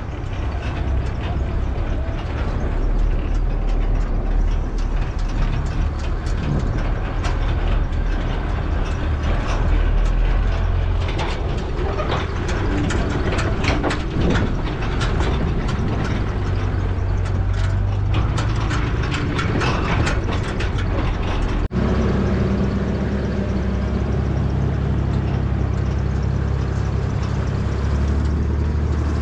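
Nissan Patrol 4x4 driving slowly over rough ground, heard from inside the cab: a steady engine hum under constant rattling and knocking of the body and gear. About 22 seconds in the sound changes abruptly to a smoother, steadier engine hum with less rattling.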